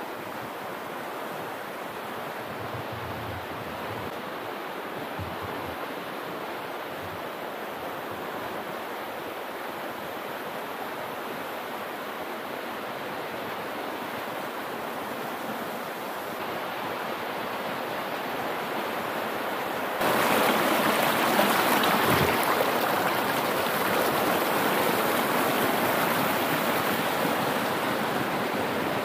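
Swollen river rushing past the bank: a steady rush of flowing water that turns abruptly louder and brighter about twenty seconds in.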